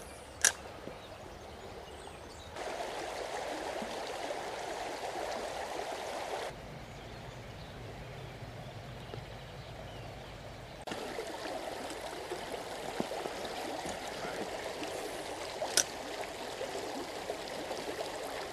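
Shallow river running over a gravel bed, a steady rushing that jumps abruptly in level three times. Two sharp clicks stand out, one about half a second in and one near the end.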